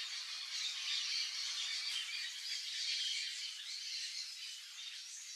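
Yellow-chevroned parakeets chattering: many high-pitched calls overlapping without a break.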